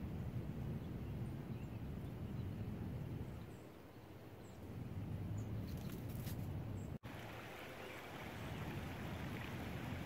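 Outdoor ambience: a steady low rumble with a few faint, short high-pitched chirps. The audio cuts out for an instant about seven seconds in, after which a soft hiss is heard.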